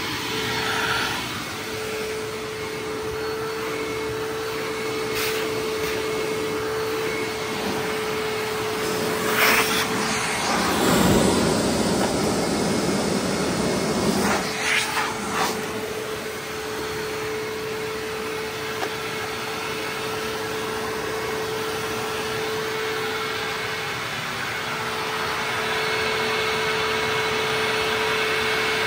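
Hoover WindTunnel Ultra Self-Propelled U6425-900 upright vacuum running with a steady motor whine over a rush of air. About ten seconds in, a louder rushing noise covers the whine for about four seconds, then the steady whine returns.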